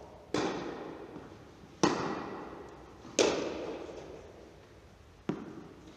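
Tennis balls struck by rackets and bouncing on an indoor court during a baseline rally: four sharp impacts, each ringing out in the hall's long echo.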